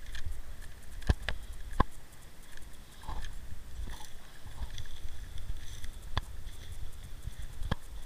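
Footsteps on burnt, ash-covered ground, with a few sharp snaps of twigs or debris underfoot, over a steady low rumble on the microphone.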